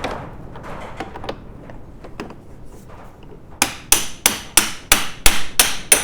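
A hammer striking metal: a quick run of about eight sharp blows, roughly three a second, beginning a little over halfway through, each with a short metallic ring. Faint light clicks of handled parts come before them.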